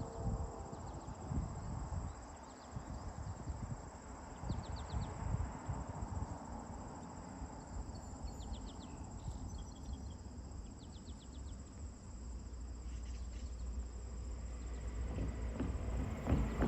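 Crickets and other insects chirping in a steady high trill, with a few short runs of rapid chirps. A low rumble builds toward the end.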